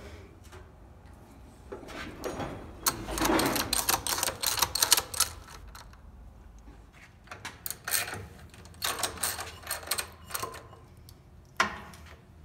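Metal tools and parts being handled in a workshop: irregular bursts of clattering and rattling clicks, with one sharp click near the end.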